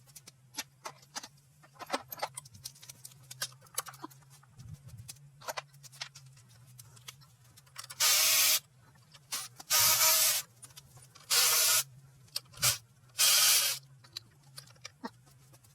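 Small clicks and clinks of tools and parts being handled, then four short, loud hisses of pressurised spray, each under a second long and a second or two apart.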